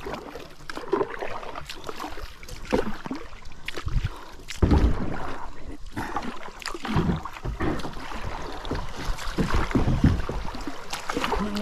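Kayak paddle strokes splashing and dipping in river water, an uneven wash of sound with heavier strokes every second or two.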